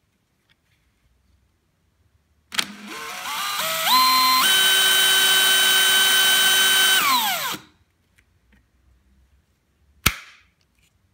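DeWALT DCD996 18 V brushless hammer drill running free with no load: the motor whine climbs in several steps to full speed, holds steady for a few seconds, then winds down as the trigger is released. About two seconds later comes a single sharp click.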